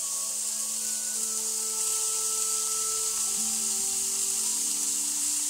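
Raw beef mince sizzling with a steady hiss as it is dropped by hand into a hot, dry frying pan, the hiss building about two seconds in as more meat goes in.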